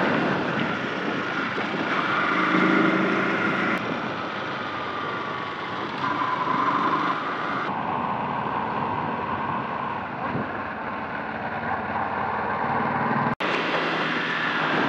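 Yamaha R15 motorcycle's single-cylinder engine running on the move, mixed with wind and road noise. The sound changes abruptly twice and drops out for an instant near the end.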